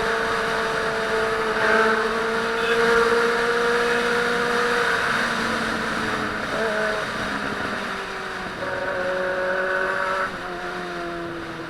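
Honda Hornet motorcycle engine running at steady revs while riding, over constant wind and road noise. The engine note eases down through the second half and drops a little shortly before the end.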